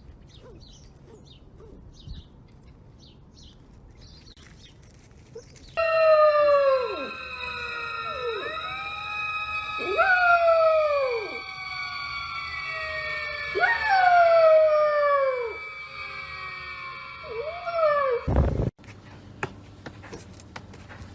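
A puppy howling: about five drawn-out howls, each sliding down in pitch, over a steady held tone in the background. The howling stops suddenly with a thump near the end.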